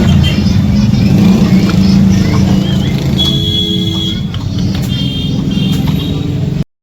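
Motorcycle engine running steadily and loudly, with a dense low rumble. All sound cuts off abruptly shortly before the end.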